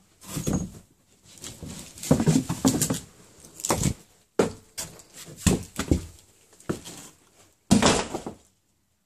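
Irregular knocks, scrapes and crunching of people moving and climbing over debris, with sharp thuds among them. It cuts off suddenly near the end.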